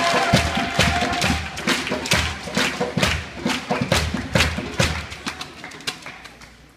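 Table tennis rally: the celluloid ball clicking off bats and the table in a quick, even rhythm of about two to three hits a second, dying away near the end as the point finishes.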